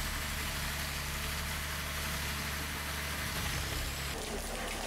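Diesel engine of a tracked forestry forwarder running steadily as its crane loads logs, a low even hum that thins out about four seconds in.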